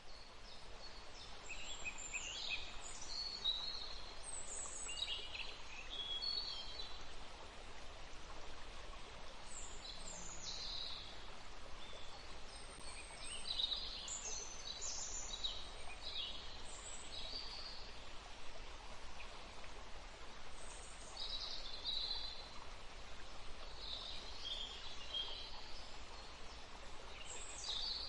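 Forest ambience: a steady rush of flowing stream water with many small birds chirping and trilling over it throughout.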